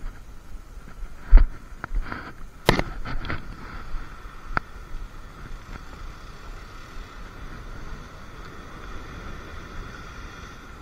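A handful of sharp knocks and thumps in the first half, the loudest about a second and a half in, over steady background noise.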